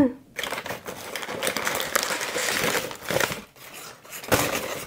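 Packaging rustling and crinkling as a parcel is unwrapped by hand, with a few sharper crackles.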